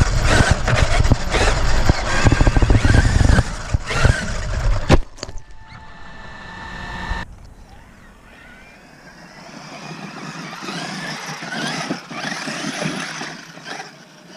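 Onboard sound of a Traxxas RC truck driving off-road: loud rattling and rumbling over rough ground for the first few seconds, ending in a sharp knock. After that it is quieter, with the electric motor's whine rising and falling as the throttle changes.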